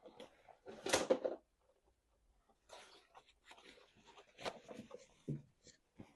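A person chewing and smacking while eating meat, in irregular bursts of clicks and mouth noise, the loudest about a second in, then a short pause before the chewing resumes.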